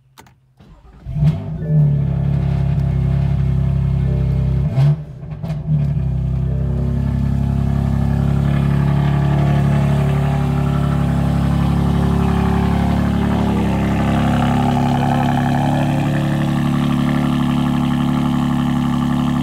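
BMW F80 M3's S55 twin-turbo inline-six cold-starting: it fires about a second in with a loud flare, surges briefly once more around five seconds in, then settles into a steady idle.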